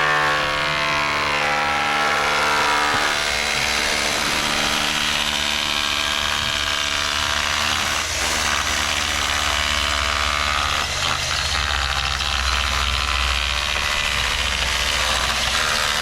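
Construction machinery running steadily at a concrete pour. A whine with several steady tones fades out after about three seconds, leaving a continuous engine-like rumble, and a deep hum swells between about ten and fifteen seconds in.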